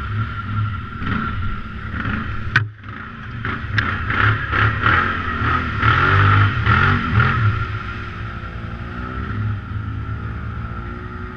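ATV engine revving up and down as the quad churns through muddy, water-filled ruts, with a sharp knock about two and a half seconds in. It settles to a steadier run for the last few seconds.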